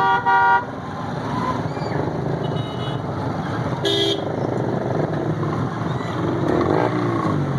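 Road traffic running steadily, with vehicle horns honking: a loud double honk at the start and another short honk about four seconds in.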